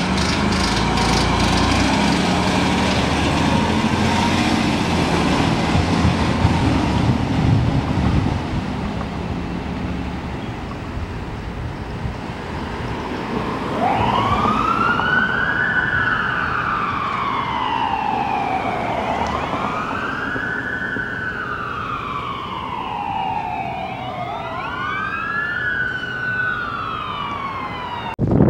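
A fire engine's diesel engine rumbles as it pulls out, with traffic noise after it. About halfway through, a siren starts wailing in slow rising-and-falling sweeps, about three cycles, with a second wail overlapping near the end.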